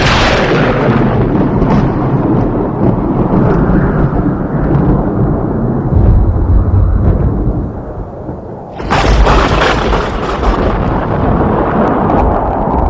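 Thunder: a close crack at the start rolls into long rumbling, with a deeper rumble about six seconds in. A second sharp crack comes about nine seconds in and rolls on into more rumbling.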